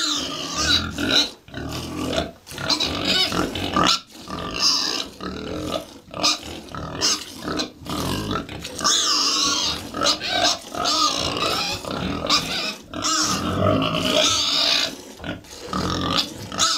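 Hand-milking a cow: streams of milk squirting into a pail that already holds milk, in a steady rhythm of short hissing strokes about one or two a second.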